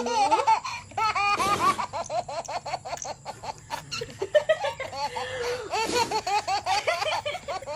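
High-pitched laughter in rapid, repeated bursts, with a couple of breathy outbursts, about one and a half seconds in and again near six seconds.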